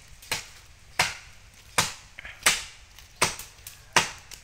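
A blade chopping into wood by hand: six hard, evenly spaced strikes, about one every three quarters of a second.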